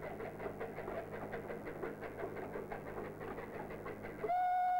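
Narrow-gauge steam locomotive working, a quick even beat of about five exhaust chuffs a second. Near the end a louder, steady high tone cuts in suddenly.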